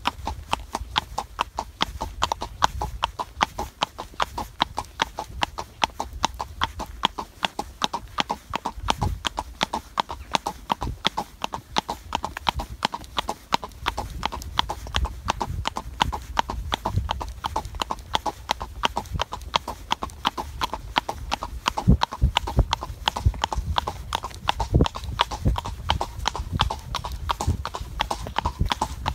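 A horse's hooves clip-clopping on a paved road in a steady, even four-beat gait, one sharp knock after another.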